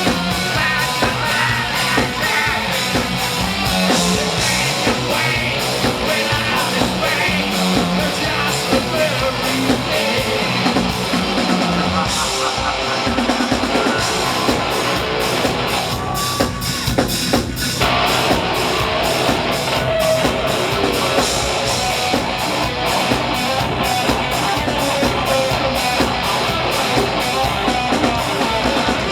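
Rock band playing live and loud, with a drum kit and electric guitars.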